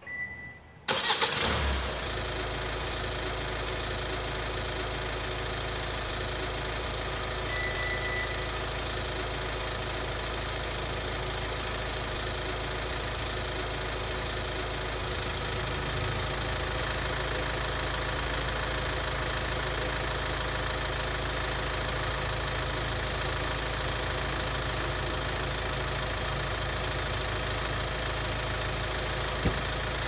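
Hyundai Tucson engine remote-started by an aftermarket alarm: a short piezo buzzer beep, then about a second in the starter cranks and the engine catches and settles into a steady idle. Another short beep sounds about eight seconds in.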